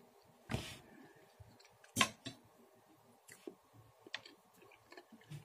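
Close-up eating sounds: quiet chewing, with a short rustling burst about half a second in and several sharp clicks of a fork on a plate, the loudest about two seconds in.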